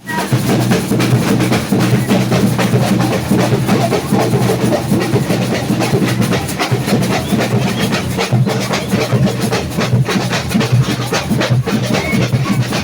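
Samba batucada drum section playing a continuous, dense rhythm, with deep bass drums under many quicker percussion strokes.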